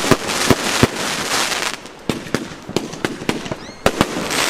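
Fireworks and firecrackers going off: a dense string of sharp bangs over a hiss that swells in the first second and a half and again near the end, with a brief high rising whistle about three and a half seconds in.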